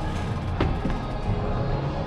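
Music with a steady low bass line and a sharp percussive hit about half a second in.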